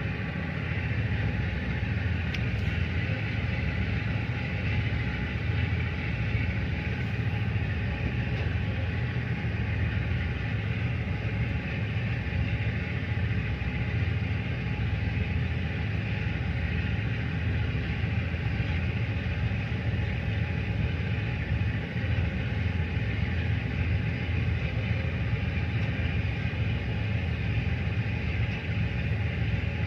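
Steady low rumble of a tugboat's diesel engine running under way while towing a barge, with no change in pitch or level.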